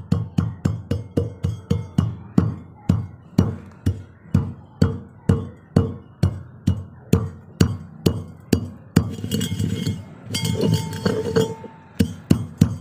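Steel pestle pounding white peppercorns in a steel mortar, about three strikes a second, each strike ringing briefly off the metal bowl. About three-quarters of the way through the strikes break off for a couple of seconds of scraping and grinding, then resume.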